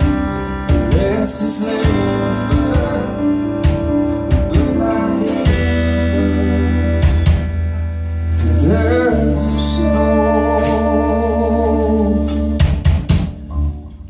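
Live band playing: electric guitar, electric bass, drum kit and a Roland FP-4 digital piano. A run of drum hits comes near the end as the song closes and the sound falls away.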